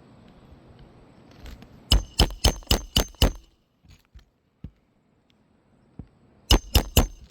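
Hammer driving a roofing nail through an asphalt shingle: a quick run of about six ringing blows about two seconds in, then another run of four or five near the end.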